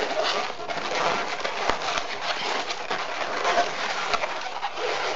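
Latex twisting balloons squeaking and rubbing against each other as a small black pinch-twist bubble is wrapped around a joint of a white balloon sculpture, with short squeals and small clicks.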